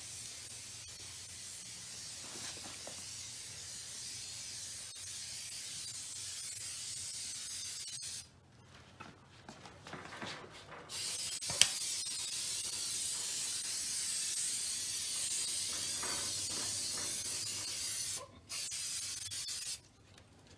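Aerosol can of 3M Super 77 spray adhesive hissing: one long spray onto the back of the carpet for about eight seconds, a pause with a few small knocks and a click, then a louder spray of about seven seconds into the steel cabinet's interior and a short final burst.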